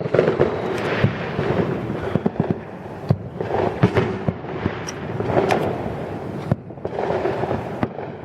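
A dense barrage of consumer fireworks going off: many sharp bangs and crackles in quick, irregular succession over a continuous wash of noise that swells and fades several times.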